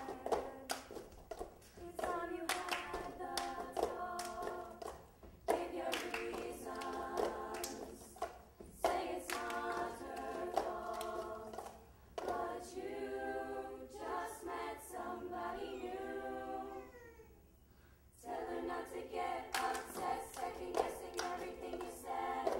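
A young mixed choir singing a cappella in harmony, over steady percussion of plastic cups slapped and tapped on the stage floor and hands clapping, in the style of the cup game. The singing drops away briefly about three-quarters of the way through, then comes back.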